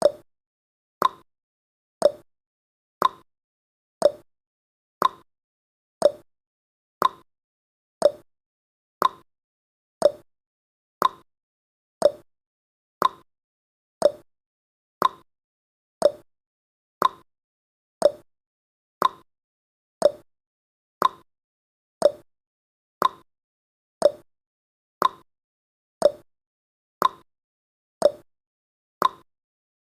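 Countdown timer's ticking sound effect: one short, sharp tick every second, evenly spaced, with silence between ticks.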